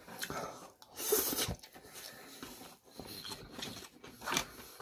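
Close-up eating sounds: a loud slurp of vermicelli noodles about a second in, then mouth noises and light clicks of a plastic fork in a styrofoam container.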